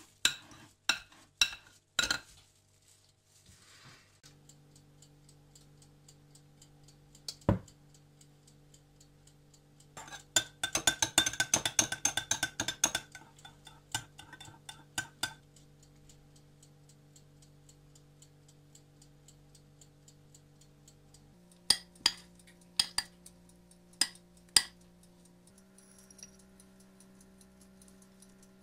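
A metal spoon clinking against glass bowls while mixing: a few sharp taps, then about three seconds of quick, rapid clinks as it stirs in a small glass bowl, then a few more single taps near the end.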